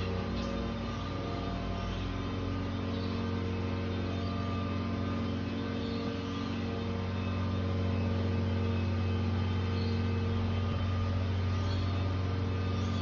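Steady low mechanical drone with several steady tones above it, a little louder about eight seconds in.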